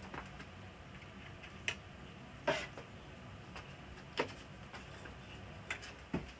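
A handful of separate sharp clicks and light knocks, the loudest about two and a half seconds in: tools and parts being handled while an LCD TV is taken apart.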